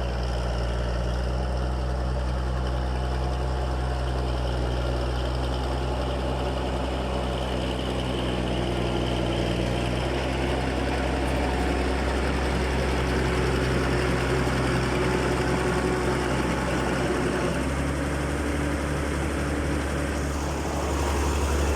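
Caterpillar D6B bulldozer's diesel engine running steadily. Its note shifts slightly about halfway through and again near the end.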